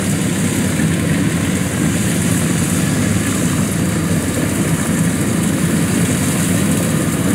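Kubota DC-115 Plus combine harvester running as it cuts lodged rice: an even diesel engine sound with a constant hiss over it.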